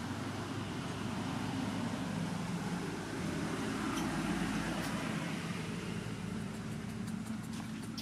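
Steady low mechanical hum, like an engine running, with a few faint clicks near the end.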